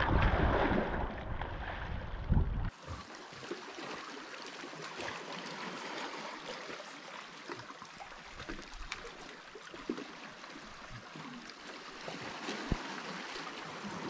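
Small waves washing and splashing over rocks and pebbles, with wind rumbling on the microphone. About three seconds in, the wind rumble stops abruptly, leaving a steady hiss of surf along the rocky shore with scattered small clicks.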